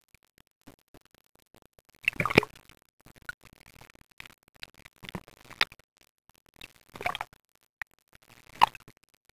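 Water splashing and gurgling in about four short irregular bursts, the first the loudest, heard by a microphone at the water surface as it dips in and out.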